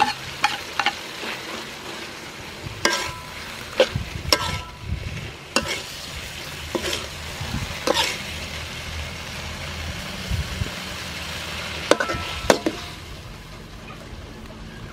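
Scallops sizzling in hot oil in a steel wok while a metal spatula stirs them, scraping and clanking against the pan every second or so, some strikes ringing briefly. The stirring stops and the sizzling quietens near the end.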